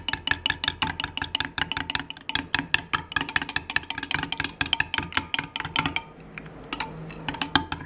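A metal table knife clinking rapidly against the sides of a glass measuring cup while stirring hot liquid plastisol, several clinks a second. The clinking stops about six seconds in, and a few single taps follow near the end, over a low steady hum.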